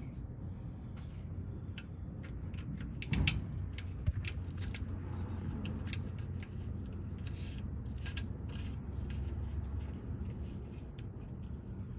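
Scattered metallic clicks and clinks of hand tools being handled during an oil change, over a steady low rumble. The sharpest knocks come about three and four seconds in.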